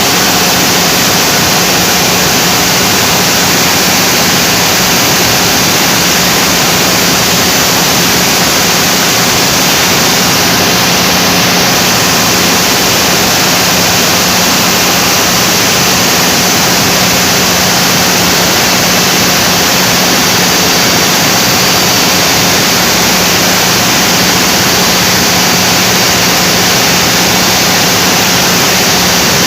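Generator running steadily under a load test: a loud, unbroken engine noise with a constant low hum.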